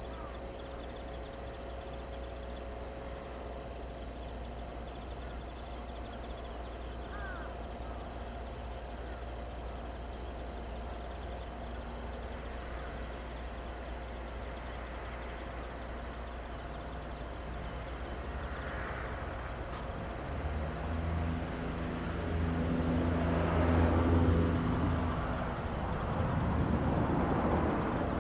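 Steady low outdoor background, then an unseen engine drawing nearer from about twenty seconds in, a low hum that grows louder and is followed by a rushing noise near the end.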